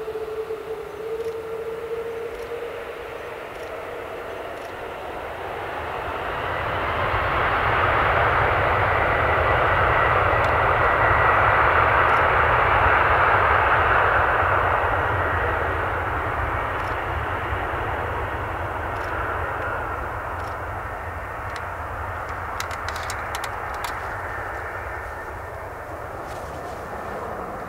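Boeing 777-200ER's two Rolls-Royce Trent jet engines at takeoff thrust during the takeoff roll. A whine rises in pitch as the engines spool up, and the jet roar swells to its loudest about ten seconds in as the airliner passes, then fades as it accelerates away down the runway.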